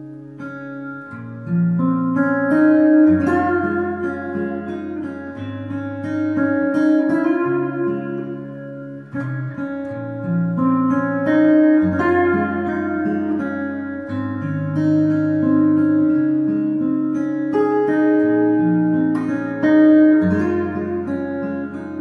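Gwood GMR-C steel-string acoustic guitar fingerpicked with a capo, a melody over moving bass notes, heard amplified through its Sunrise S2+ soundhole pickup and K&K Pure Mini pickup into a Fishman Loudbox Mini amp. The playing gets louder about a second and a half in, with a brief let-up about halfway.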